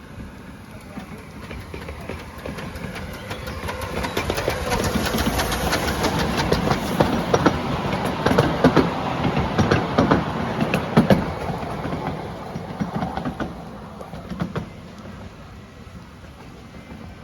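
7¼-inch-gauge miniature railway train running past, its wheels clicking over the rail joints. It grows louder toward the middle and fades away near the end.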